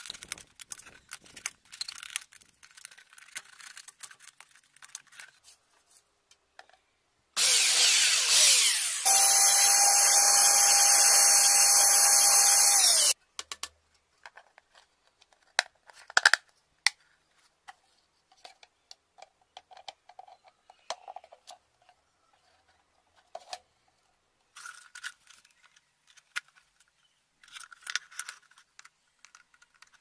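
Small electric drill running for about five seconds, drilling a hole through a plastic tub lid, starting about seven seconds in and stopping abruptly. Before it, a utility knife scratches and cuts at a plastic bottle; afterwards there are light clicks and knocks of plastic being handled.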